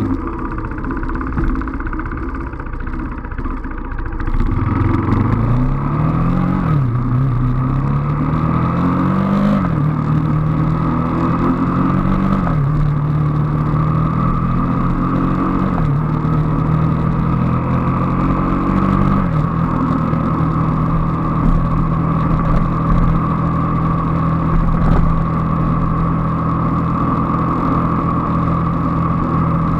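Motorcycle engine heard from on board, pulling away and accelerating up through the gears: its pitch climbs and drops back at each of about five upshifts, then holds steady at a cruise for the last third.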